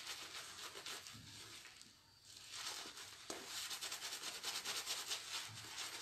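Shaving brush rubbing and swirling soap lather on a bearded face in quick strokes, a soft bristly scrubbing with a brief lull about two seconds in.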